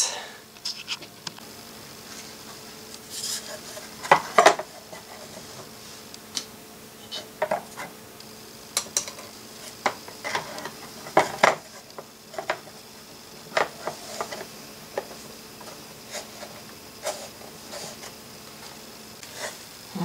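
Irregular light clicks, taps and short scrapes as the breaker panel's cover pieces are handled and trimmed, with brief pauses between.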